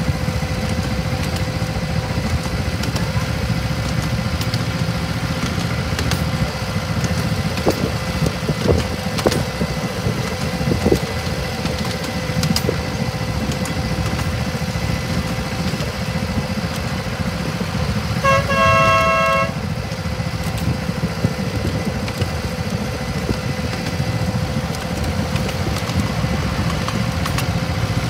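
Miniature railway diesel locomotive running steadily under way, its engine a constant low drone with a thin steady whine, and a few light clicks along the track. Its horn sounds once, a single blast of about a second, roughly two-thirds of the way through.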